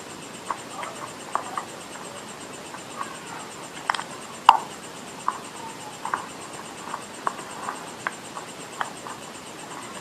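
Close-miked chewing of clay: irregular wet mouth clicks and smacks, with two sharper clicks about four seconds in.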